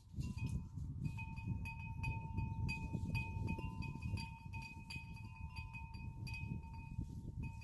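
Wind rumbling on the microphone, with two steady ringing tones held over it and scattered light clicks.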